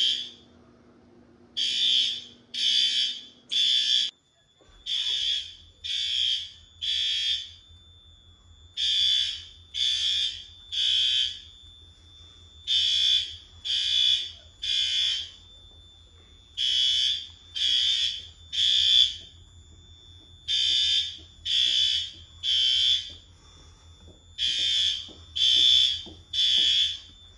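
System Sensor L-series fire alarm horns sounding the temporal-three evacuation signal: three short, loud horn blasts, then a pause, repeating every four seconds or so.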